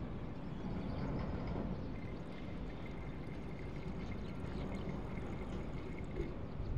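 Blue liquid whitener trickling from an upturned squeeze bottle into a bottle of vinegar, over a steady low rumble.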